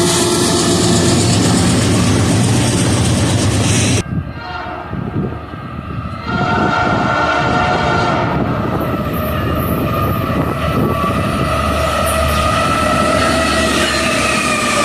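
A Nathan Airchime P3 locomotive air horn sounds its chord over the rumble of a passing train. The horn cuts off suddenly about four seconds in. After a short lull the horn sounds a long chord again from about six seconds in, and it drops slightly in pitch near the end.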